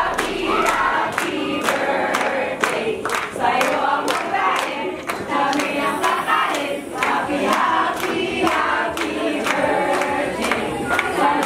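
Many voices singing together over a steady beat of about two sharp strokes a second.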